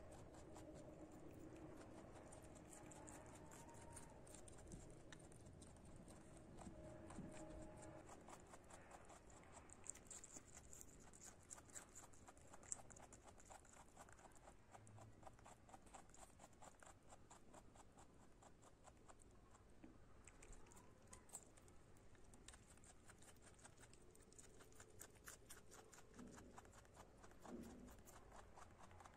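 Rabbit chewing shredded cabbage leaves: a fast, faint run of crisp crunching clicks that goes on without a break.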